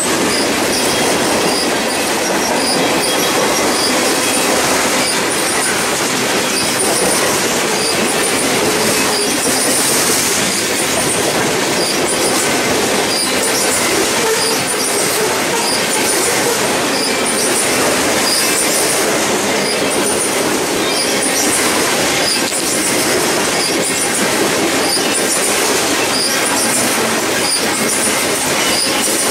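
A freight train of tank cars and covered hoppers rolling past close by at a steady pace: constant wheel-on-rail noise, with faint high ticks repeating evenly.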